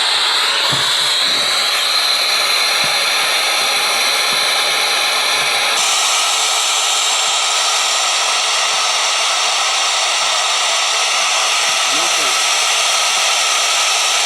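FM radio receiver giving out steady, loud static hiss with no station on it. The transmitter's carrier is still off, so there is no signal to receive. The hiss shifts slightly about six seconds in.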